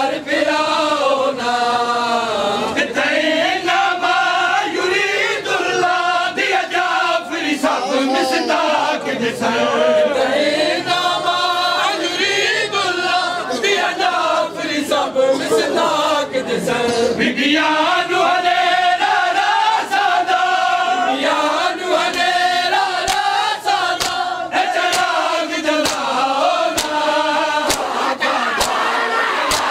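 A group of men chanting a nauha (Shia lament) together, with sharp slaps of hands on bare chests (matam) that come more often in the last few seconds.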